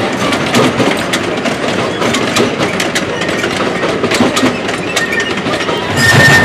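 Miniature railroad train's cars and caboose rolling past on the track: a steady rumble with irregular sharp clicks of wheels on the rails. Music with steady tones comes in just before the end.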